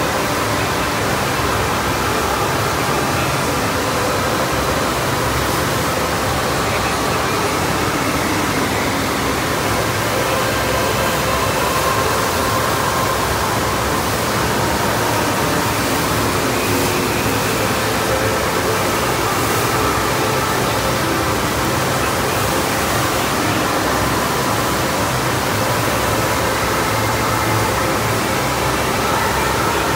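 Steady rush of a FlowRider sheet-wave surf simulator: a thick sheet of pumped water streaming up the padded ride surface without pause.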